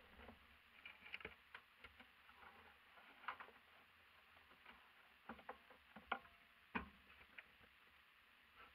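Near silence inside a parked van's cab, broken by scattered small clicks and rustles as the driver shifts and turns in his seat. The clicks come irregularly, a few of them sharper, the loudest about two-thirds of the way through.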